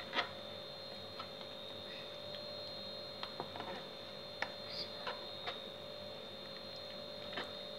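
Hands rubbing and pressing a raw whole chicken, giving scattered soft wet taps and clicks, over a steady electrical hum with a high whine.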